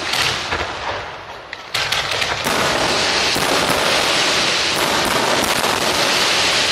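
Aerial firework shells bursting, with a loud bang at the start and more about two seconds in. These merge into a dense, continuous crackle of many small reports.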